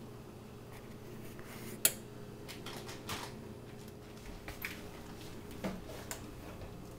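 Light kitchen handling noise: a sharp click about two seconds in, then a few soft knocks and clicks, over a steady low hum.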